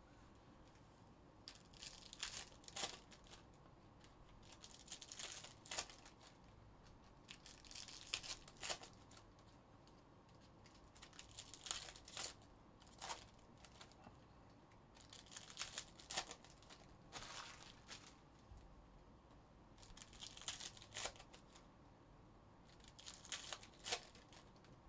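Foil trading-card pack wrappers being torn open and crinkled, in short crackly bursts that come about every three seconds.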